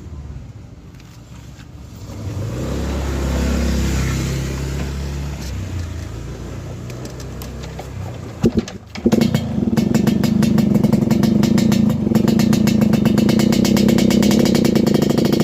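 Yamaha RX-King 135cc single-cylinder two-stroke motorcycle engine running. A low, uneven rumble comes first, then a couple of sharp pops about eight seconds in, then a steady, rapid, crackling exhaust beat at higher revs.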